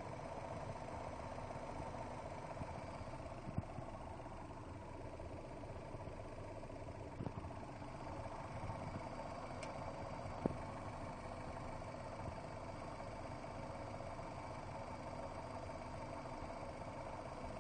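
Chevrolet Gentra's petrol engine idling fully warmed up, a steady hum broken by a few isolated sharp knocks at irregular intervals. It is the knock in the warm engine that the owner cannot explain.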